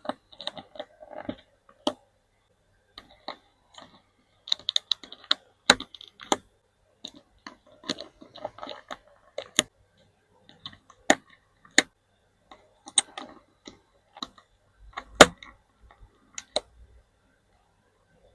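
Typing on a DIY mechanical keyboard fitted with Gateron Pro switches: keystrokes come in irregular bursts of clicks, with an occasional single louder clack.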